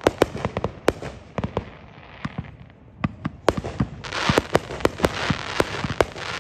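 Aerial fireworks bursting: a rapid, irregular run of sharp bangs that thins out around the middle, then a dense hiss with more bangs from about four seconds in.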